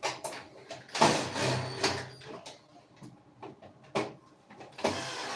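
Sharp clicks and knocks with rustling in between, the sound of things being handled at close range.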